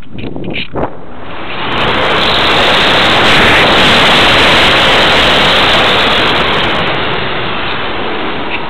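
Airflow rushing over the onboard camera's microphone on a Parkzone Radian glider in a steep dive, with no motor to be heard and the propeller folded. The rush swells about two seconds in, holds loud through the middle, and eases off near the end as the model pulls out.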